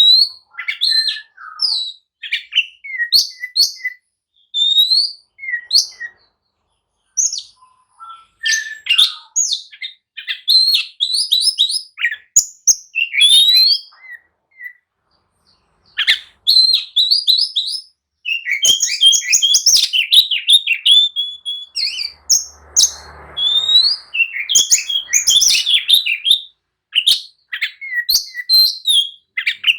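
Oriental magpie-robin (kacer) singing in a loud, fast run of varied chirps, whistles and rising glides, broken by a couple of short pauses. It is the aggressive, fired-up territorial song that keepers play to provoke other magpie-robins into answering.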